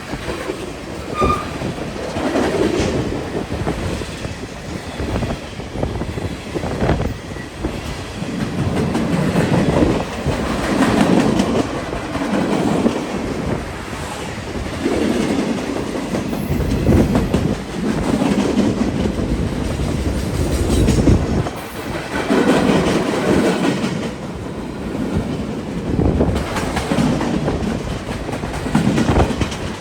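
Freight cars of a long freight train rolling past, the wheels clattering over the rail joints in a continuing clickety-clack that swells and fades as each car goes by.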